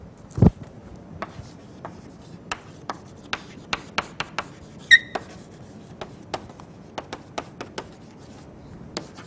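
Chalk writing on a chalkboard: a string of short taps and scrapes at an uneven pace as the letters are formed, with one brief high squeak about halfway through. A single low thump comes about half a second in.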